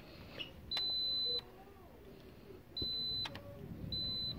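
Digital multimeter in diode-test mode beeping three times, in steady high-pitched tones, as the probes touch across a capacitor on the LCD panel's board. The beep means a near-zero reading: the capacitor tests as a short.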